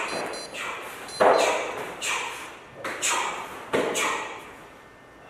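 Walking cane swung through a martial-arts form: a run of sharp whooshes and thuds, about one a second, the loudest thud about a second in.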